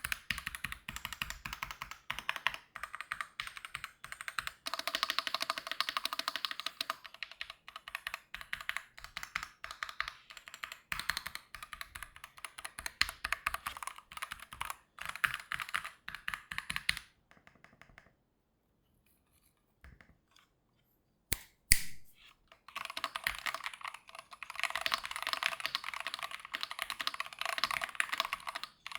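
Typing on a Keychron Q1 HE keyboard with Hall-effect magnetic switches: fast, dense runs of keystrokes. About two-thirds of the way through the typing stops for a few seconds, one louder keystroke follows, then fast typing resumes.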